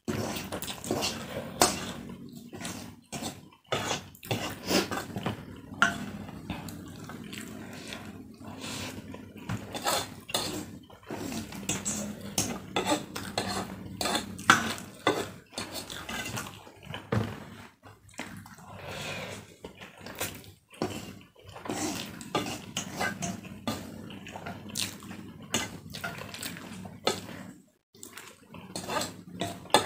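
A wooden spatula scraping and knocking against a metal wok as fried instant noodles are scooped up, with slurping and chewing of the noodles between the irregular clicks.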